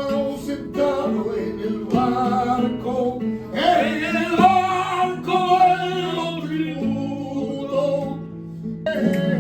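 Music: a plucked acoustic guitar with a voice singing over it.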